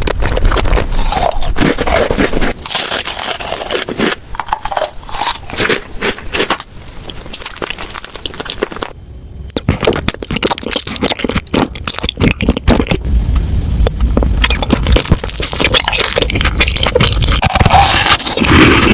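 Close-miked eating sounds: crunching and crackling bites with scraping, a dense run of clicks that thins out in the middle and picks up again near the end.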